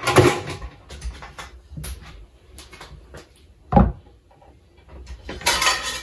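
Knocks and clatter of peeled carrots being picked up and put down on a wooden chopping board on the counter, with one heavier thump just before four seconds in.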